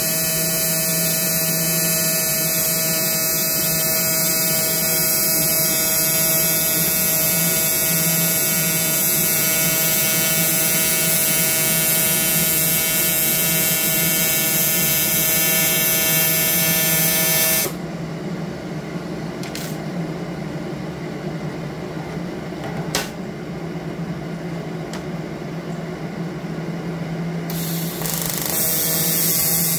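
TIG welding arc from an Everlast Typhoon 230 on an aluminium reservoir, buzzing steadily for about 18 seconds. The arc breaks off, leaving the welder's lower hum with a couple of faint clicks, then strikes again about two seconds before the end.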